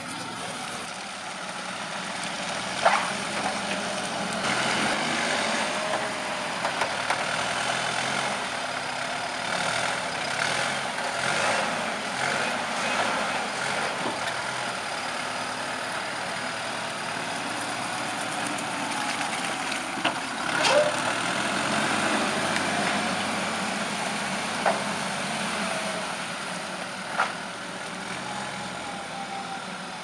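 Cat TH407 telehandler's diesel engine running, its revs rising and falling as it drives and lifts a full bucket of chopped maize. A few sharp knocks break in now and then.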